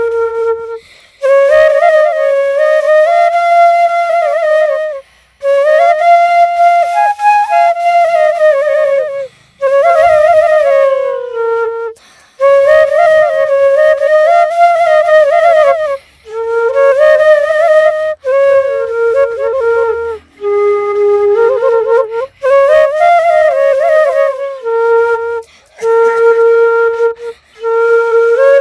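A flute playing a melody alone, in phrases of about two to four seconds separated by brief pauses, the notes sliding and bending between pitches.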